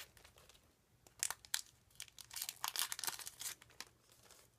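Foil wrapper of a Pokémon TCG booster pack crinkling as the cards are slid out of the torn-open pack, in two spells of crackling: briefly about a second in, then for about a second and a half in the middle.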